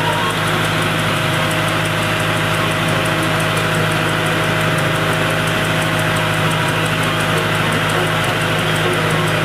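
Vintage stationary engine running steadily at a constant speed.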